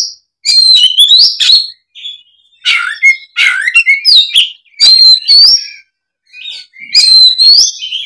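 Oriental magpie-robin (kacer) in aggressive, fighting-mood song, delivering loud, varied phrases of whistles, slurred notes and rapid chatter in bursts of about a second, each separated by a short pause.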